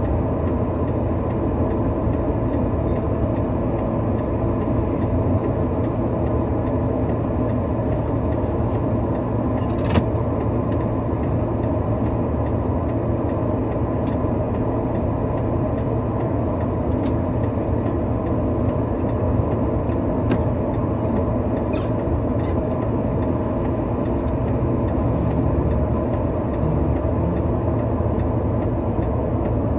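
A heavy vehicle's engine running steadily, with a few faint sharp clicks here and there.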